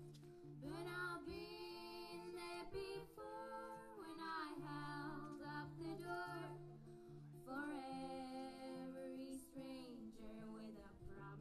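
A woman singing long held notes over a quiet, steady instrumental accompaniment.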